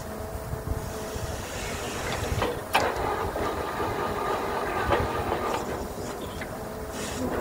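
Truck-mounted borewell drilling rig running as it drills: a steady rumble with hiss and irregular knocks, and one sharp clank about three seconds in.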